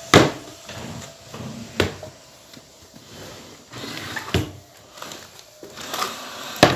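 Four sharp knocks or clacks spread over several seconds, with faint rustling and handling noise between them.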